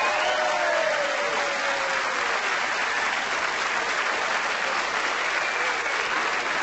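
Large studio audience applauding.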